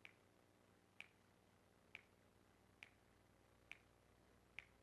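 A man snapping his fingers slowly and steadily, about once a second, six faint sharp snaps in a row.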